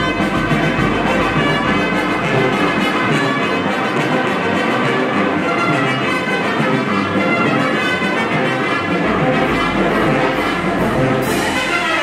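Live Oaxacan brass band (banda filarmónica) playing a tune at a steady volume, with brass carrying the melody.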